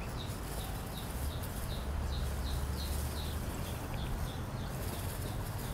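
Welsh Harlequin duckling peeping over and over, short high peeps about three a second that stop near the end, over a low steady rumble.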